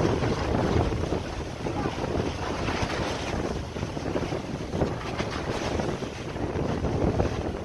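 Storm wind gusting hard across the microphone, over the steady wash of rough sea.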